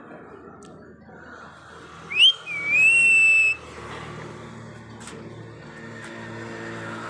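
A pet parrot whistling: a quick upward whistle about two seconds in, then one held whistle lasting about a second. A faint low steady hum sits underneath through the second half.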